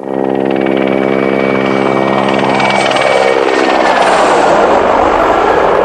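Helicopter flying low and passing close overhead: a steady rotor buzz with a thin high turbine whine, giving way about three seconds in to a loud rushing noise that swells and eases as it goes by.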